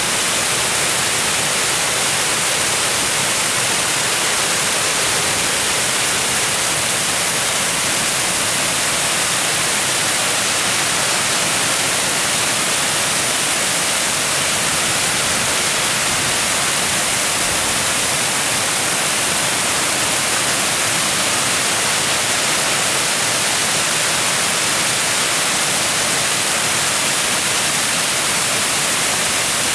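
Water cascading over a weir, a steady loud rushing hiss that never changes.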